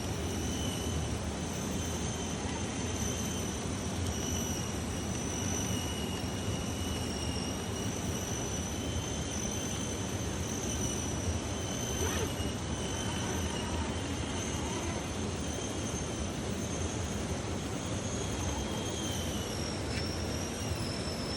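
An RC4WD Warn 8274 scale winch's small electric motor and gears running, a steady high whine that holds its pitch, wavering slightly and dipping near the end.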